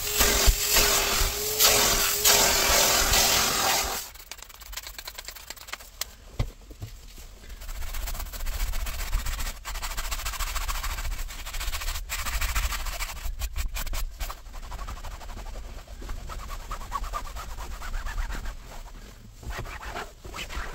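Upholstery wet-extraction vacuum running with a steady motor hum and suction, shut off about four seconds in. After that come quieter rubbing and handling sounds with a few sharp clicks as the fabric armrest is wiped down with a cloth.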